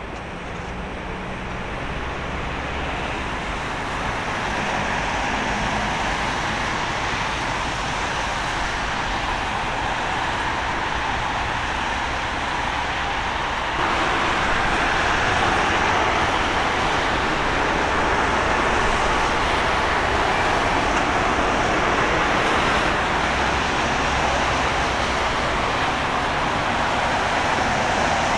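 Airbus A320neo jet engines (CFM LEAP-1A turbofans) on a landing: a steady jet rush that grows louder over the first several seconds as the aircraft comes in, then steps up suddenly about halfway through as it rolls out on the wet runway.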